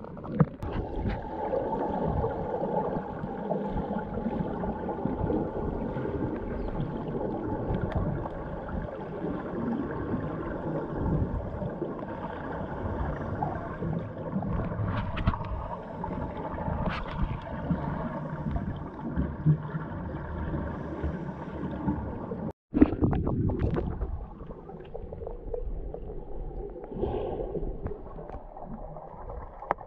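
Muffled underwater sound picked up by an action camera held below the surface: a steady low rumble of moving water with gurgling, as snorkelers swim and kick their fins. It cuts out for a moment about three-quarters of the way through, then returns with a sharp bump.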